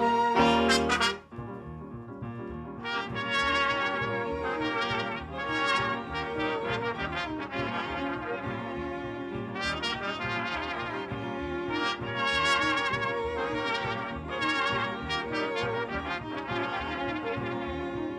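Band music led by brass, trumpet and trombone. A loud held chord cuts off about a second in, then a lively tune with a steady beat follows.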